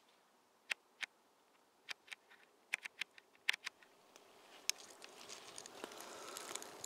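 Water dripping into a small pool in a tree-trunk junction: a dozen or so sharp, irregularly spaced drip ticks. A soft hiss builds from about four seconds in.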